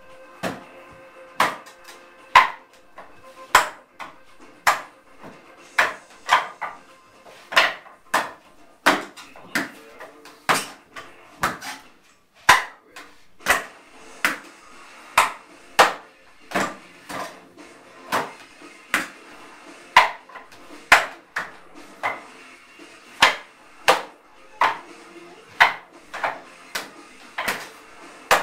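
Wing Chun wooden dummy (mook jong) struck again and again by hands and forearms in a freestyle sequence: sharp wooden knocks and clacks, about one to two a second in an uneven rhythm.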